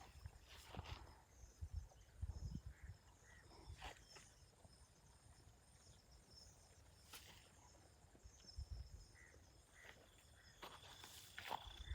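Near silence outdoors: a faint steady high insect chirring, with a few soft knocks and rustles.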